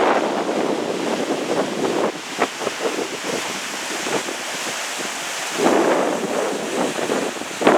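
Strong wind buffeting the microphone in loud, ragged gusts; it eases about two seconds in and gusts up hard again after about five and a half seconds.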